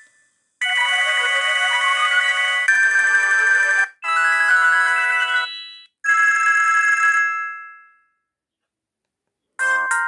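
Sony Ericsson T250 mobile phone's loudspeaker playing its built-in ringtones one after another, each a few seconds of electronic melody cut off as the next begins. The tones stop for about a second and a half near the end, then another ringtone starts.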